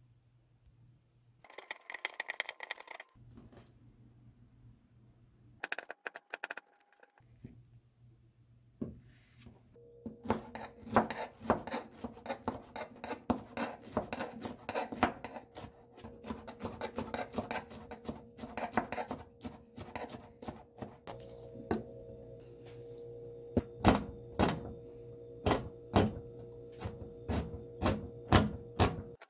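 Kitchen knife cutting through pineapple on a cutting board, with short knocks of the blade against the board. Near the end it switches to sharp, rapid chops through almonds and other nuts on the board. A faint steady hum runs under the second half.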